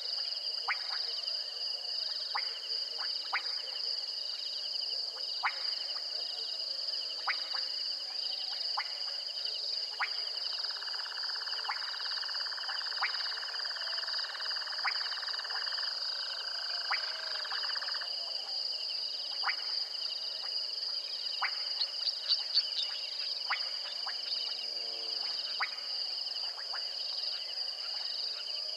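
Nocturnal chorus: insects trilling steadily at a high pitch, with sharp single frog calls every second or two. A lower, denser buzzing trill runs from about ten seconds in to about eighteen.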